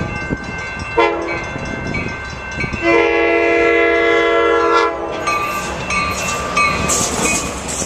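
Coaster commuter train's horn, sounded from the leading cab car as it nears a grade crossing: a short blast about a second in, then a long blast of about two seconds, closing the crossing signal. The train then passes close by, its cars rumbling and clattering over the rails.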